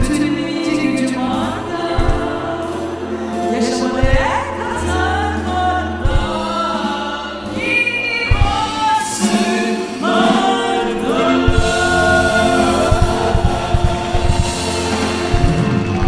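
Music: a choir singing over drums and bass.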